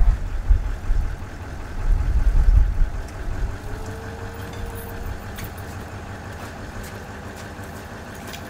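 Nissan Titan XD pickup truck idling steadily, with gusts of wind buffeting the microphone in the first few seconds.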